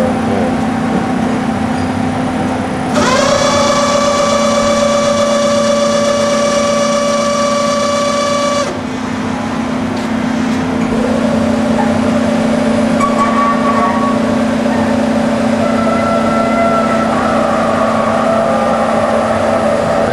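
Cincinnati 750-20 VerciPower CNC mill's X-axis table feed drive whining as the table traverses, over a steady machine hum. The whine rises in pitch about three seconds in, holds level, and stops suddenly near nine seconds. A second whine rises about eleven seconds in and runs on with shifting pitch.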